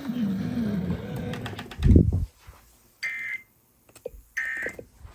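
A voice over the radio trails off, then two short, identical bursts of Emergency Alert System digital data tones, a shrill warbling buzz near 2 kHz, come about a second and a half apart. Bursts this short and evenly spaced are typical of the EAS End of Message code that closes the test.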